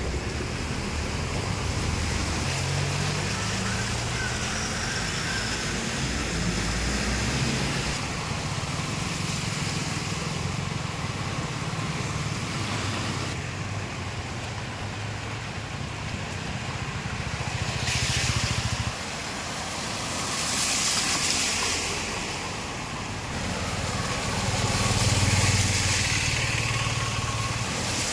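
Vehicles driving through floodwater on a road: engines running and water sloshing and splashing around the tyres. It swells louder several times in the second half as vehicles pass close.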